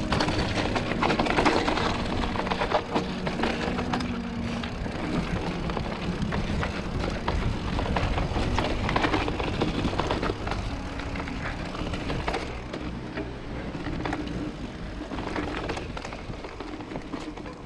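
Mountain bike rolling fast down a rough dirt and gravel trail: tyres crunching over stones, with constant rattling and knocking from the bike as it rides over bumps. The sound fades away near the end.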